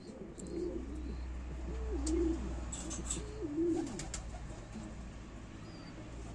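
Domestic pigeon cooing: a run of several coo phrases that rise and fall in pitch, stopping about four seconds in.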